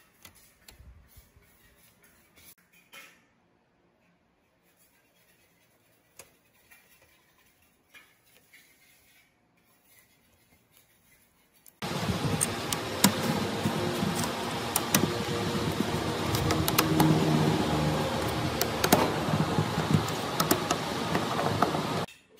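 Faint taps and clicks as a laptop touchpad board is handled into its metal bracket. About halfway through, screws are driven into the bracket: a loud, dense grinding noise full of sharp clicks that starts and stops abruptly and lasts about ten seconds.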